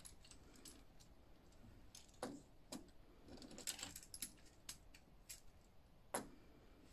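Faint, scattered plastic clicks of a Generation 1 Transformers Sandstorm toy being handled and turned over, with a sharper tap near the end as it is set down on a tiled tabletop.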